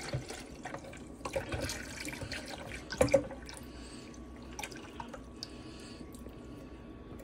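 Evaporated milk pouring from a can into a plastic blender jar of liquid: a steady splashing pour with scattered drips, and a sharper click about three seconds in.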